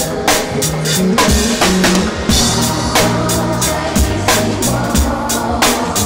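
Live band playing a mid-tempo R&B groove, the drum kit prominent with a steady beat of kick drum and snare over sustained low bass notes.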